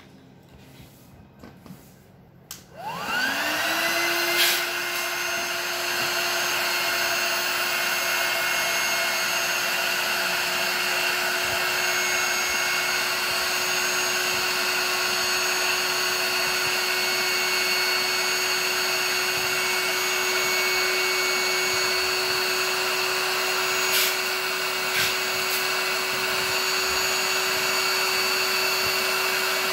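Handheld electric air pump switching on about three seconds in, spinning up with a rising whine and then running at a steady pitch as it blows air into an inflatable pool through its valve. A few light clicks before it starts, and a couple of sharp clicks later on.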